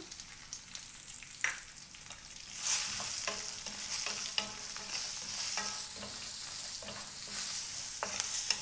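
Nuts, green chillies and curry leaves sizzling in oil in a frying pan, stirred with a wooden spatula that scrapes and clicks against the pan. The sizzle grows louder about two and a half seconds in.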